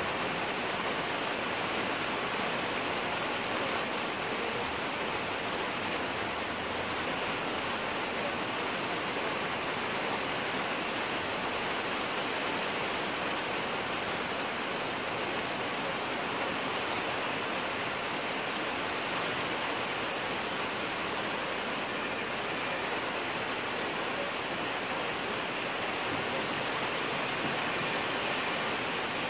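Steady rain falling on garden conifers, hedges and lawn: an even hiss that holds at one level throughout.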